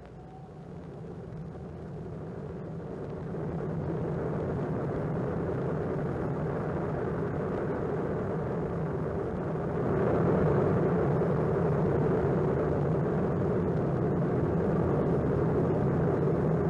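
Erupting lava at a volcanic vent, a steady low rushing noise that grows louder about three seconds in and again about ten seconds in.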